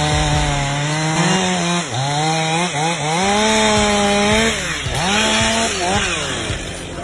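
Chainsaw running at high speed, its engine pitch dropping and climbing back several times, about five dips, as it is throttled or slowed in the cut.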